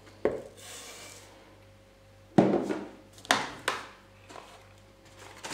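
Sugar poured from a cup into a plastic mixing bowl, a short hiss about half a second in. Then three sharp knocks as the ceramic cup is handled and set down on a wooden board.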